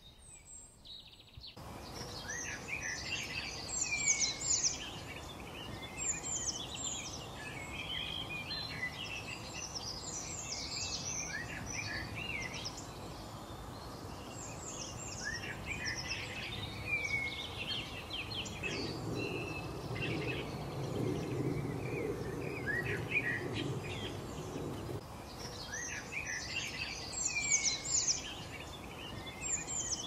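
A dense outdoor chorus of many small birds chirping and twittering over a steady background hiss, starting about two seconds in. A low rumble joins for a few seconds past the middle.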